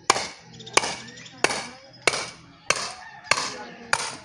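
A hammer striking metal in a steady rhythm, seven sharp clanks about two-thirds of a second apart, each ringing briefly.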